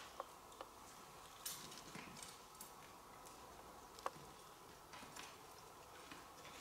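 Near silence: a faint steady insect drone, with a few light clicks and soft rustles as a fishing keepnet is handled on the rocks.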